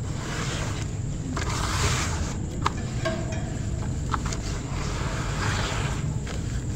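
Wet ash slabs squeezed and crumbled by hand in a basin of water: squelching and splashing in repeated bursts, with a couple of sharp clicks, over a steady low rumble.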